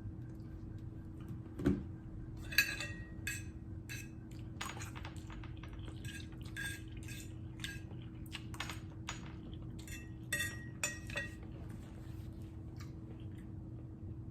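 A dull thump about two seconds in, then a run of light clinks and scrapes of cutlery against a dish while noodles are eaten, dying away about eleven seconds in. A steady low hum runs underneath.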